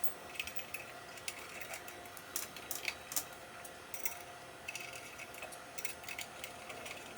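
Light, irregular metallic clicks and short scrapes of small Allen bolts being started into a beadlock scooter rim.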